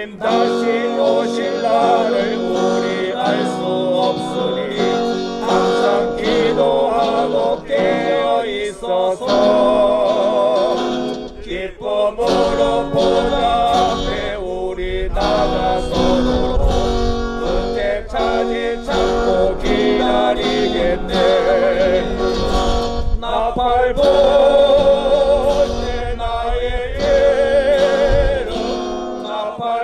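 Church praise team singing a hymn to strummed acoustic guitar, loud and steady, the voices held with vibrato.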